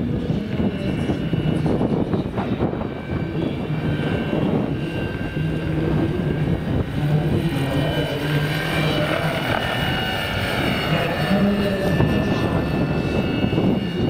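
Large electric scale model helicopter, a Vario Schweizer 300C with a Kontronik electric drive, flying overhead. The rotor and motor run steadily, with a drone and a higher whine, over a low rumble of strong wind on the microphone.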